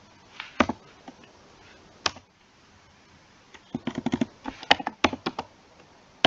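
Typing on a computer keyboard: two single keystrokes in the first couple of seconds, then a quick run of keystrokes from about three and a half to five and a half seconds in.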